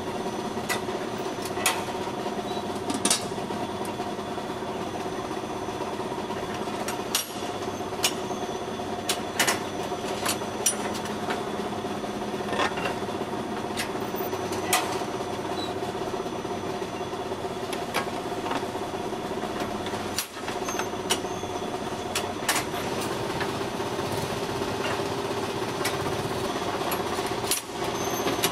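Automatic mini-bread baking machine with its batter depositor running: a steady mechanical hum with sharp metallic clicks and clacks now and then.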